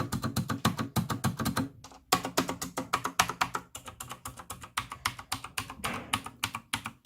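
Computer keyboard being typed on rapidly: a quick, continuous run of key clicks, several a second.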